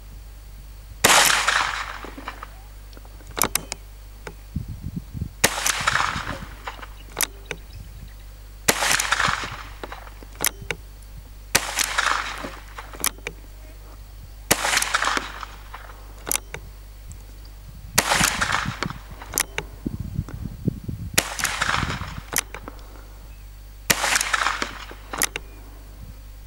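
Alfa Carbine .22LR revolver-action carbine firing slow aimed shots with high-velocity Sellier & Bellot 38-grain hollow points: eight sharp cracks about three seconds apart, each followed by a short echo, with lighter clicks between shots.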